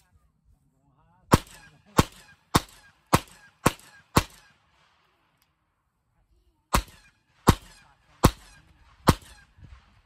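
A gun firing ten shots in quick succession: six about half a second apart, a pause of about two seconds, then four more. Each shot trails off in a short echo.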